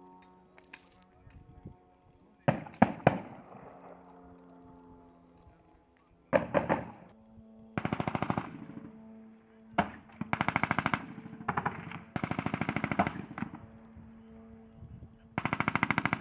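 Gunfire: a couple of single shots, then repeated bursts of automatic fire, each a rapid even string of cracks lasting up to about a second, the last burst near the end.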